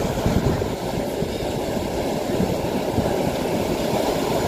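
Steady rush of surf breaking on a sandy beach, mixed with wind buffeting the microphone.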